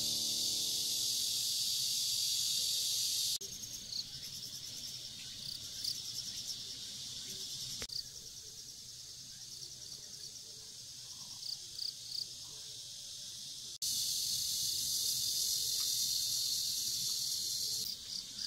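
Summer insect chorus: a steady high-pitched shrilling that changes abruptly about three and a half seconds in and again near eight and fourteen seconds, with a quieter middle stretch where short repeated chirps stand out.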